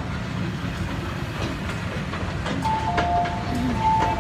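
Hong Kong MTR train running into an underground station platform: a steady low rumble. About two and a half seconds in, a two-note electronic chime sounds, its two pitches alternating and then overlapping.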